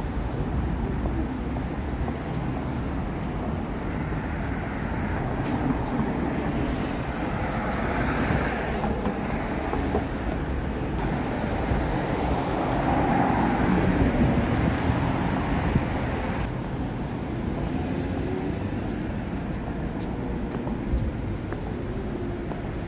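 City street traffic: vehicles running along the road, one passing louder around the middle, with a thin high whine for a few seconds while it passes.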